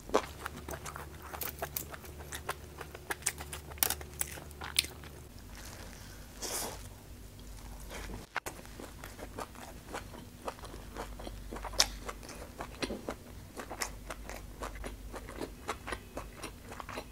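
Close-miked chewing and biting of grilled skewered meat, with many small wet mouth clicks and crunches.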